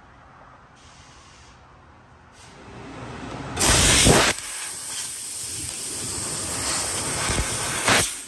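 Fiber laser cutting head blowing assist gas through its nozzle while cutting sheet metal: a loud steady hiss that starts about three and a half seconds in, is strongest for its first half second and surges briefly near the end before cutting off. Before it there is only low room tone.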